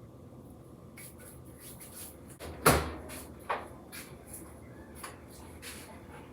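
Kitchen handling noises: a string of light clicks and knocks, with one loud knock about two and a half seconds in and a smaller one a second later.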